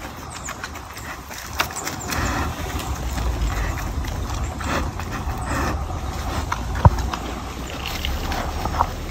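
American black bear eating from foam food trays and plastic wrap on a picnic table: scattered rustling, crinkling and clicks, with one sharp click about seven seconds in, over a low rumble.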